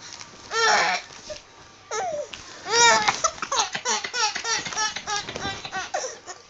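Baby boy giggling: a high-pitched burst about half a second in, then from about three seconds in a long run of quick, short giggles.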